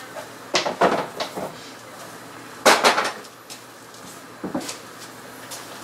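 Kitchen handling knocks as a dough tub is fetched: a few light clacks about half a second to a second and a half in, one sharp knock about two and a half seconds in, and a lighter one near four and a half seconds.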